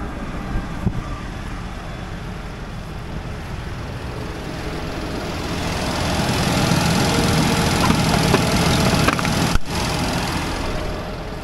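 Deutz-Fahr 6175 TTV tractor engine idling steadily with the PTO disengaged, swelling louder about halfway through and easing back near the end, with a couple of light knocks near the start.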